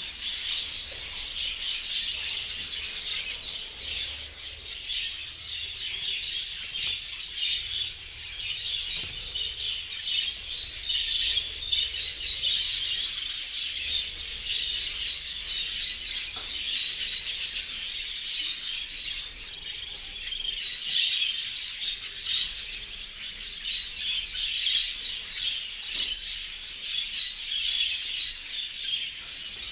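A flock of budgerigars chattering and chirping continuously, many birds calling at once.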